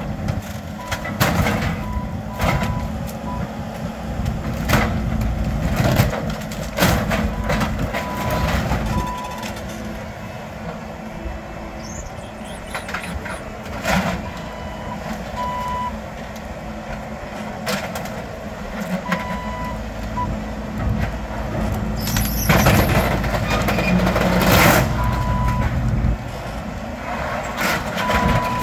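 Compact track loader's diesel engine running under load, its reversing alarm beeping on and off in short runs. Sharp knocks and cracks come throughout, with a louder, noisier stretch about three quarters of the way through, as the machine works at the barn's timber wall.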